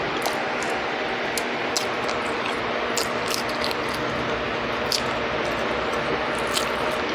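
Eating sounds from deep-fried pan trout being picked apart by hand and chewed: scattered small crackles and mouth clicks over a steady background hiss.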